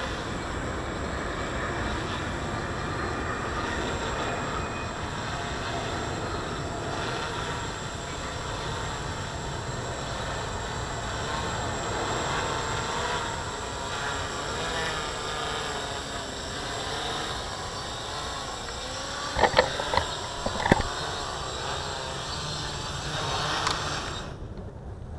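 F450 quadcopter's four electric motors and propellers buzzing overhead, the pitch wavering up and down as the flight controller adjusts throttle, over wind rumble on the microphone. A few sharp knocks come about twenty seconds in, and near the end the sound drops and thins out.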